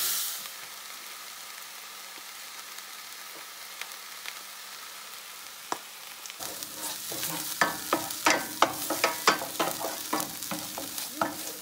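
Onion, ginger, garlic and chili paste frying in butter and oil in a pan, a low steady sizzle. From about halfway, a wooden spoon stirs and scrapes tomato paste around the pan in quick, sharp strokes, two to three a second.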